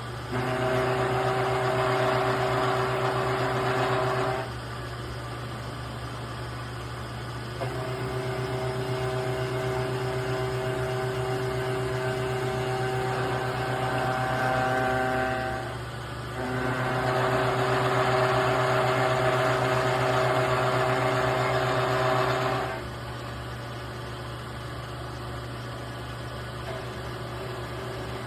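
Milling machine running steadily while its cutter shapes a radius on 1/4-inch aluminum angle: three cutting passes of several seconds each make the sound louder and harsher, with the machine running unloaded between them and after the last one.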